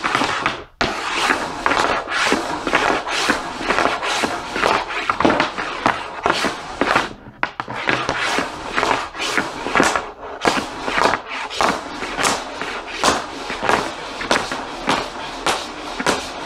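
Hockey stick working a 6-ounce Fly Puck Pro puck on a slick melamine board: a rapid, uneven run of clacks as the blade strikes the puck, with the puck scraping and sliding over the board in between.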